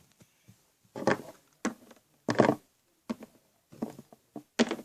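A series of short, soft knocks and rustles, about six in under five seconds, like objects being handled and moved about close to the microphone.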